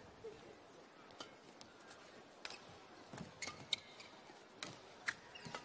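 Badminton rally: sharp, separate cracks of racket strings hitting the shuttlecock at irregular intervals, coming faster and louder in the second half, over a faint hiss of hall ambience.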